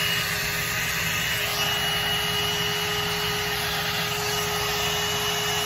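Hot air brush (hair dryer brush) running on its low setting: a steady rush of blown air with a constant whine.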